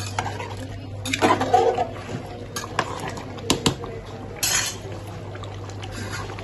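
A metal ladle knocking and scraping against a large aluminium pot while stirring a thin curry. There are several sharp clinks in the first few seconds and a short liquid swish about four and a half seconds in, over a steady low hum.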